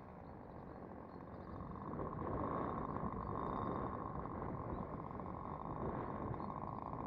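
Wind buffeting the microphone: a steady rumble that grows louder about two seconds in, with faint high bird chirps.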